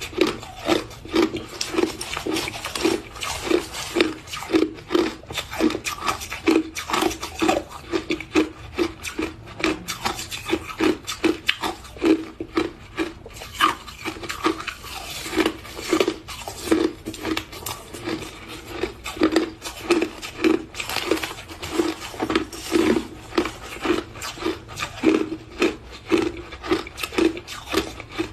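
Crushed ice being chewed: a steady run of crisp crunches, a little under two a second.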